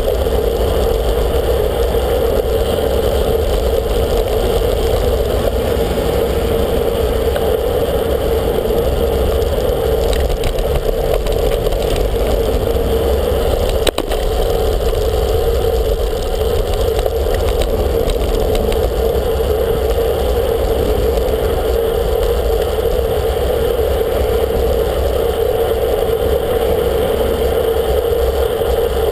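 Steady wind and road noise picked up by a camera mounted on a moving road bike. There is one sharp click about halfway through.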